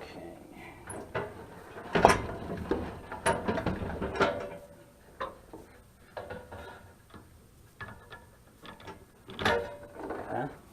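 Irregular clanks, clicks and knocks of metal parts and hand tools as a dehumidifier is being taken apart, with a sharp knock about two seconds in and another near the end.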